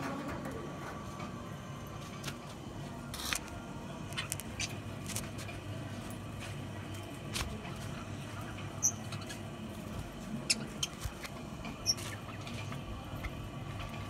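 Budgerigars chirping: scattered short, high squeaks and small clicks, with the sharpest squeaks about nine and twelve seconds in.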